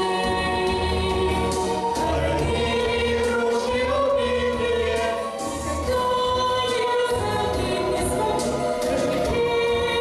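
A choir singing long held notes over an instrumental backing with a steady low bass pulse.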